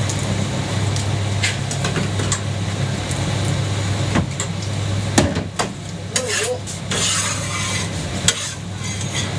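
Jianbing pancake cooking on a hot griddle: a metal spatula scrapes and taps on the plate over a sizzle, with several sharp clicks and a steady low hum underneath.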